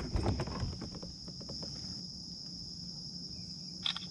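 Steady high-pitched chorus of chirping insects, with a few clicks and knocks during the first second and one short sharp sound near the end.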